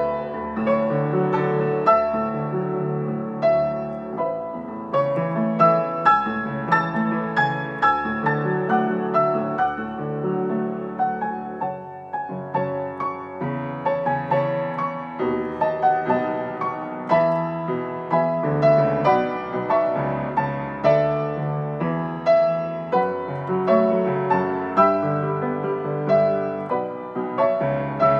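Solo piano playing a continuous flowing passage of chords and melody, softening briefly about twelve seconds in.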